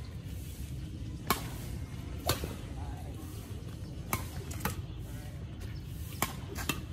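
Badminton rackets hitting a shuttlecock back and forth in a doubles rally: about six sharp ticks at uneven spacing, the loudest about a second in, over a steady low rumble.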